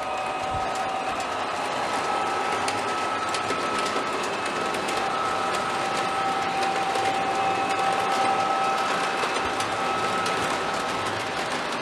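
Lionel O27 model trains running: a steady whine from the locomotive motors and gearing, with wheels clicking and rattling over the tubular track. It gets a little louder partway through as the train nears.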